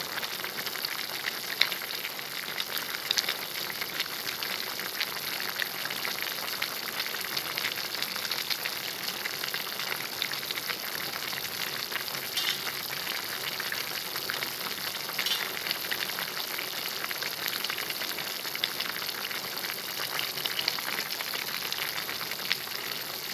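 Pot of potato, carrot and ground beef soup boiling: a steady bubbling crackle with a few small ticks.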